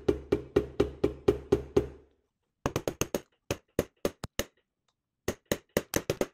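Rubber mallet tapping a steel pin punch to drive the planetary pin out of a KitchenAid tilt-head stand mixer. For the first two seconds it is a steady run of hits about four a second, with a low resonant thud from the mixer body. After a short pause come sharper, lighter taps in two irregular clusters.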